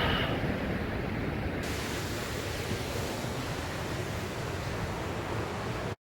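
Steady rushing roar of the Cauldron Snout waterfall cascade, mixed with wind buffeting the microphone. The sound cuts off abruptly near the end.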